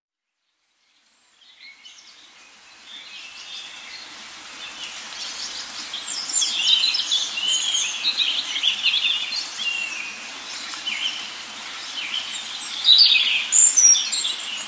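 Small birds chirping and chattering in a dense, overlapping chorus of quick high chirps, starting faintly about a second and a half in and growing louder.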